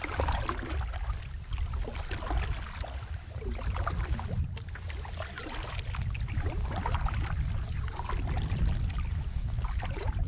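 Canoe paddle strokes in calm water: the blade dipping and pulling, with water splashing and trickling off the paddle in small irregular spatters over a steady low rumble.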